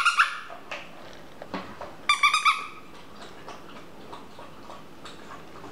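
Puppy giving two quick runs of short, high-pitched yelps, one right at the start and another about two seconds in, while it works at a food box, with faint light knocks in between.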